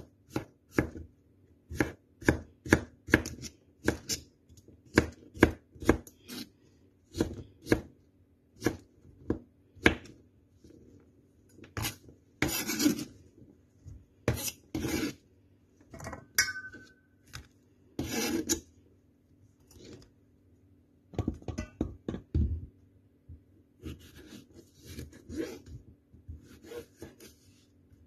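Kitchen knife chopping cucumber on a plastic cutting board: a run of sharp, irregular knife strikes on the board, with a few longer scraping sounds near the middle.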